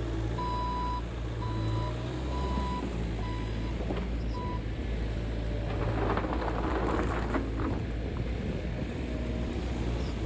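Skid steer engine running steadily while its reversing alarm beeps about half a dozen times over the first four seconds. A stretch of clattering and scraping comes about six seconds in.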